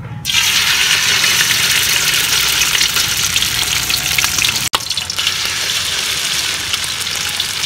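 Ground chicken sizzling loudly in hot oil in a steel wok. The hiss starts abruptly as the meat hits the oil and stays steady, with a split-second break just past halfway.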